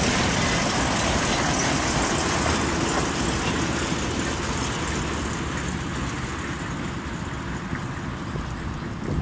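Narrow-gauge train with a diesel locomotive running away along the track, its engine and rail noise fading steadily.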